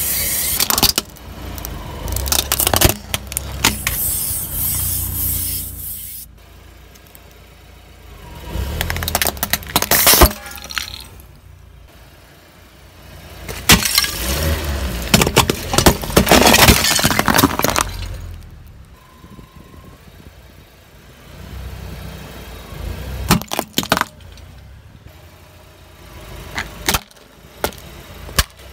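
A car tyre rolling slowly over small objects on asphalt, crushing them one after another: plastic toys, a figurine and a terracotta flower pot crack, snap and crunch under the weight. The crushing comes in about five separate bouts of dense cracking with a low rumble, with quieter stretches between them.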